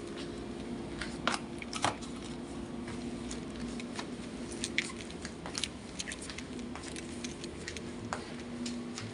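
Scattered light clicks and knocks of household things being handled and moved during cleaning, over a steady low hum.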